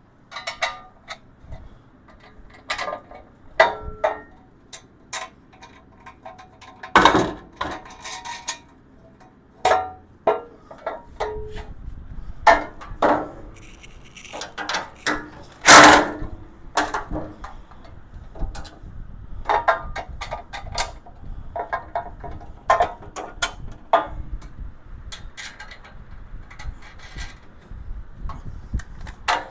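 Irregular metallic clinks, taps and clanks of steel tool-cart parts and bolts being handled while the side tray is fitted and bolted on. The loudest clank comes about 16 seconds in, with another strong knock about 7 seconds in.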